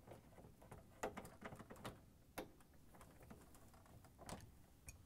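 Faint plastic clicks and taps as a refrigerator's plastic control panel housing is handled and pulled down. The loudest clicks come about a second in, around two seconds in and a little after four seconds.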